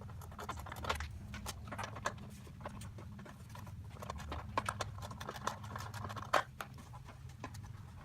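Irregular clicks and knocks of hand tools and metal parts being handled during a riding-mower teardown, with a few sharper knocks, over a steady low hum.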